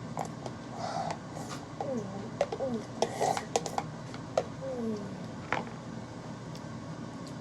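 Eating at a table: scattered clicks and light clatter of utensils and dishes, with a few short gliding vocal sounds.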